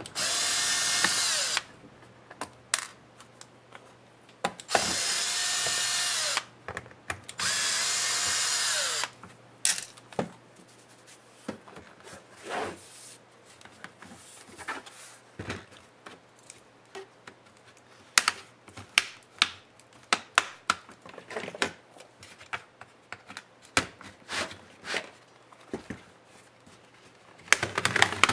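Cordless electric screwdriver running in three short bursts as it backs out the laptop's bottom-case screws, its pitch falling each time it stops. Then scattered plastic clicks and snaps as the case is pried and pulled apart by hand.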